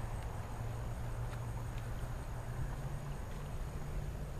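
Insects trilling steadily at a high pitch, over a low, steady hum.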